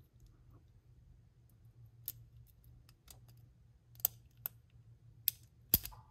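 Scattered small sharp metal clicks and ticks, about half a dozen at irregular gaps, from a small screwdriver tip and the parts of a Sig P365 trigger housing as the trigger bar spring is worked into its hole; the sharpest click comes near the end. A low steady hum runs underneath.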